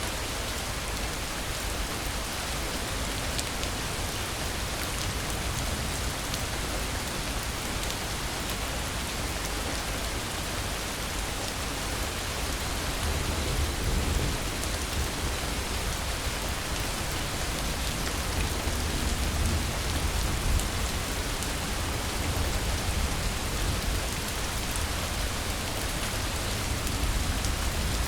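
Steady heavy rain falling on a hard surface, with a low rumble of distant thunder swelling about halfway through and again near the end.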